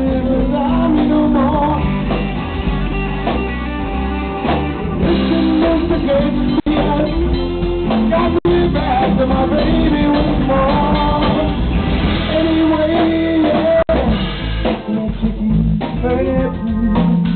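Live blues-rock band playing: electric guitar and drum kit, with a man singing over them.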